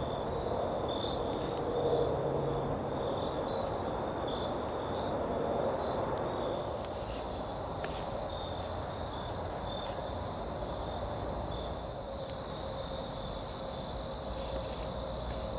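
Night-time insect chorus: a steady high-pitched trill with short regular pulses in it, over a lower steady hiss.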